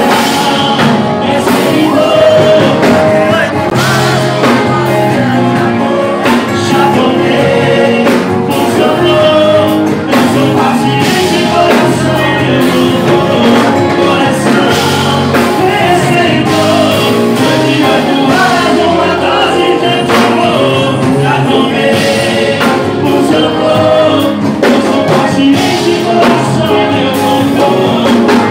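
Sertanejo duo performing live: singing over guitar with a steady beat.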